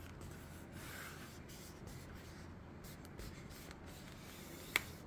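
Fingers pressing and rubbing along the plastic screen bezel of an HP ProBook 640 G2 laptop, with one sharp snap near the end as a bezel clip seats into place.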